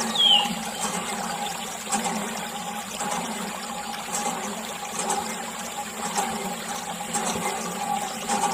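Water running steadily out of a thin plastic tube and splashing onto wet soil.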